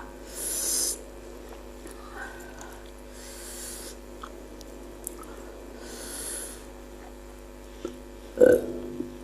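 A person's breathing while eating: three short hissy breaths, then two louder, lower breath or throat sounds near the end.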